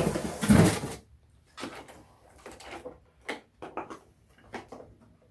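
Hard plastic carpet-cleaner parts being handled and set down: a loud bump and scrape in the first second, then a string of light knocks and clicks.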